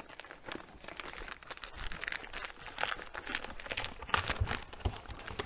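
Plastic packaging bag crinkling and rustling in quick, irregular crackles as a remote controller is pulled out and unwrapped.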